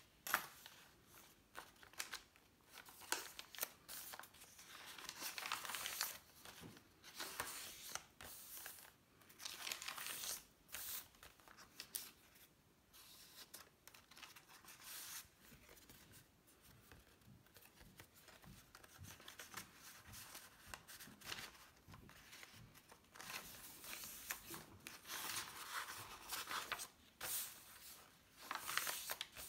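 Paper pages of a handmade junk journal being turned and smoothed by hand: irregular crinkling rustles and crackles, with a few longer swells of rustling as pages are lifted over.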